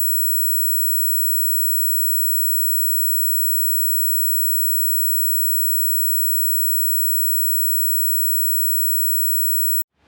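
Steady, very high-pitched electronic tone, several pure pitches sounding together and unchanging, cutting off abruptly near the end.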